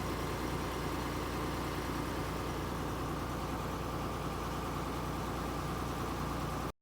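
Tata Hitachi 200 excavator's diesel engine running steadily, with a constant whine over the engine noise. The sound cuts out abruptly near the end.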